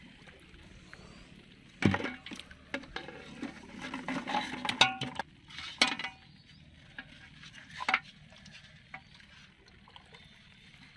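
Plastic bottles and wet fish handled in an aluminium pot: irregular knocks, clinks and rattles against the metal, with some water sloshing. The knocks are busiest between about two and five seconds in, and there is a last sharp knock near eight seconds.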